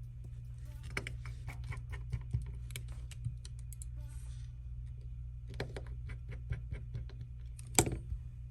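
Irregular small clicks and taps of a smartphone's parts and small repair tools being handled, with a sharper click near the end, over a steady low hum.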